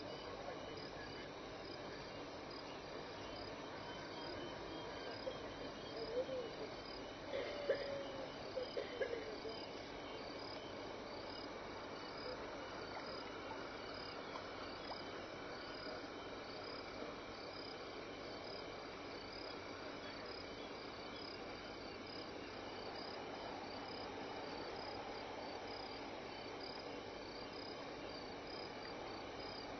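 Crickets chirping steadily at night in a high, evenly repeating pulse, with a few brief louder calls between about six and nine seconds in.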